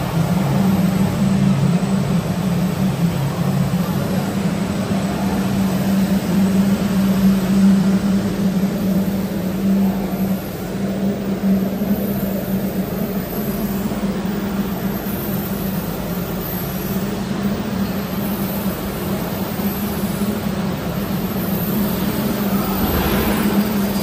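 Continuous rotary drum carbonization furnace line running under test: a steady, loud mechanical drone with a strong low hum from its drive and blower machinery.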